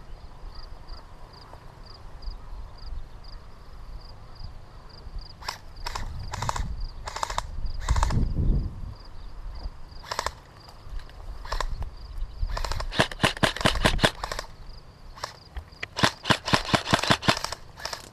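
Airsoft electric gun firing rapid bursts, with single sharp clicks before them and two quick strings of shots in the second half, the loudest near the end.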